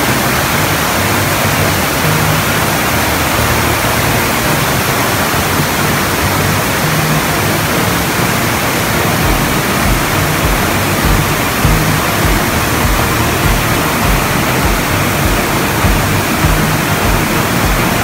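Rapids in a rocky stream below a waterfall: water rushing steadily over and between boulders, an even rush with no breaks.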